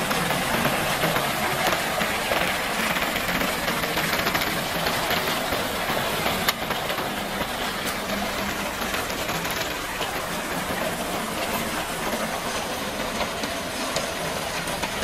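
Concrete mixer truck running as it discharges, wet concrete pouring from the turning drum down the steel chute in a steady, even rush of noise. A single sharp click comes about six and a half seconds in.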